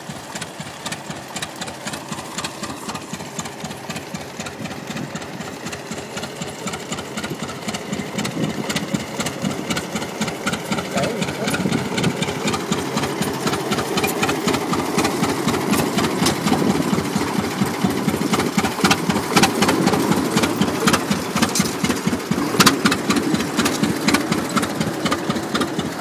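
Vintage John Deere tractor's two-cylinder engine running under load as it pulls a plough, with a fast, even firing beat that grows louder as the tractor draws near.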